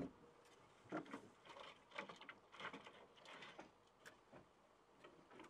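Faint knocks and light scrapes of loose larch wood shingles being shifted and pressed by hand on the roof battens, a sharper click at the start and irregular soft taps after it.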